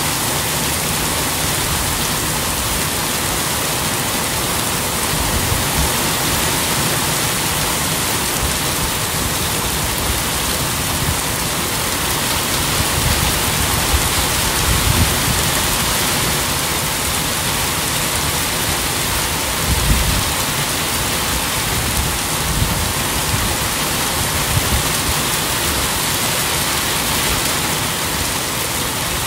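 Steady rain falling: a dense, even hiss of drops, with a few brief low thumps scattered through it.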